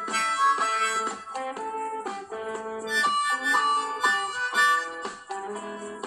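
Blues harmonica played with hands cupped around it, short riffs of notes and chords that change quickly, with brief gaps between phrases.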